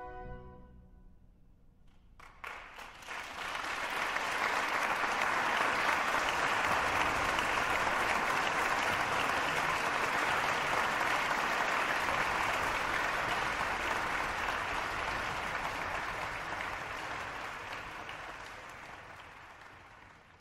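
Music fading out, then an audience applauding from about two seconds in, building quickly, holding, and slowly dying away near the end.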